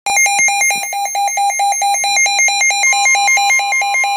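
Weather radio receiver's alert alarm beeping rapidly, about five beeps a second, signalling an incoming severe thunderstorm warning. About three seconds in, a fainter steady tone joins underneath: the NOAA Weather Radio warning alarm tone.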